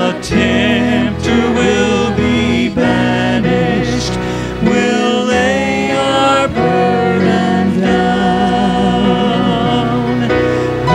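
Gospel vocal quartet of three women and a man singing a hymn in harmony through microphones.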